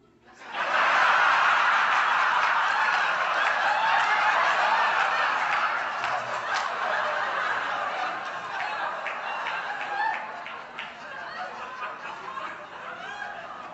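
An audience bursts into laughter about half a second in. The laughter is loudest at first, then slowly dies down to scattered chuckles. One sharp knock comes about six and a half seconds in.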